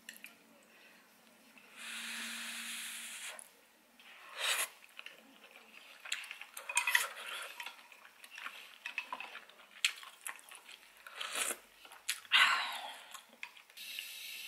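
Wooden chopsticks and a small ceramic bowl clinking and scraping against a clay pot as pieces of millefeuille nabe are lifted out, in a run of irregular clatters that are loudest near the end. About two seconds in there is a steady hiss lasting about a second and a half.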